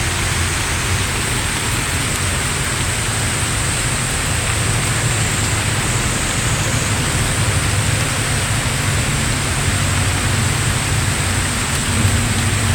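Heavy downpour: torrential rain pouring steadily, a dense even hiss with a low rumble underneath.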